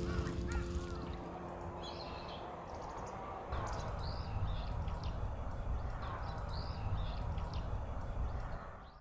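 Outdoor ambience: birds calling several times over a low steady rumble, with closing background music fading out in the first second or so. The sound cuts off abruptly at the end.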